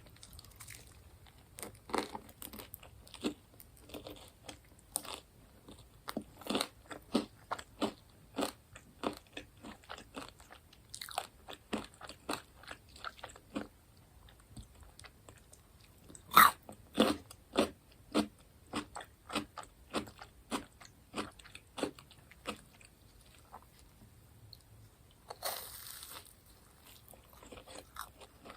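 Close-miked eating of crunchy fried food: repeated crisp bites and chewing crunches, with one loud bite about 16 seconds in. A second-long hiss-like sound comes near the end.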